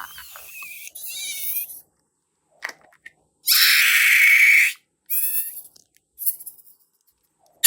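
Rubber balloons squeaking and squealing in several short bursts, with a loud rush of air hissing out for just over a second about three and a half seconds in.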